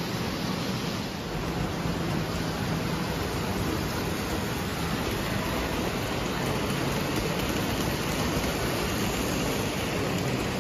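Two Lionel O-gauge toy steam trains with freight cars running on three-rail tinplate track: a steady noise of motors and wheels on the rails, growing a little louder about two seconds in.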